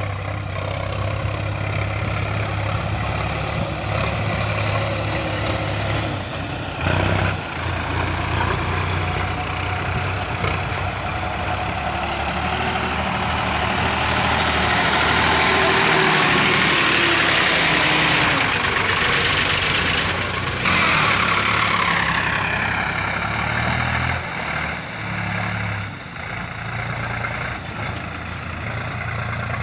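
Sonalika diesel tractor engine running steadily while pulling a loaded trailer. It grows loudest about halfway through as the tractor passes close by, then eases off with a falling pitch.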